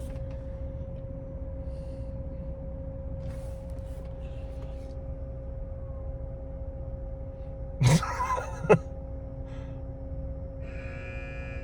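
Jeep Gladiator's V6 engine idling, heard from inside the cab as a steady low hum with a constant drone. A brief louder noise breaks in about eight seconds in.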